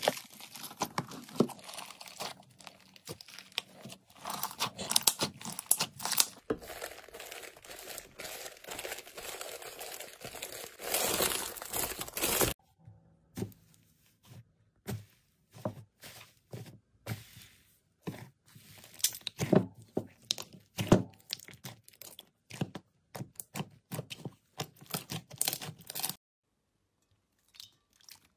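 Hands squeezing, poking and stretching slime, with sticky crackles, pops and tearing sounds in quick uneven runs. The texture changes as different slimes are handled. A break of near silence comes about two seconds before the end.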